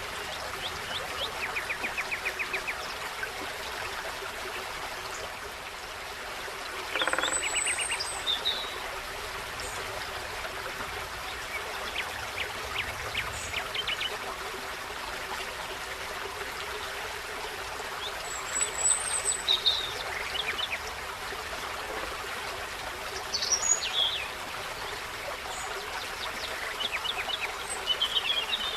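Steady rushing of a small forest stream, with small songbirds calling on and off over it: a quick trill of rapid notes near the start, then scattered high chirps and thin whistles, and a few louder calls about a third of the way in and again near the end.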